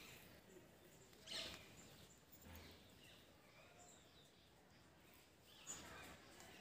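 Near silence: faint outdoor ambience with a few faint, high bird chirps and a brief rustle about a second and a half in.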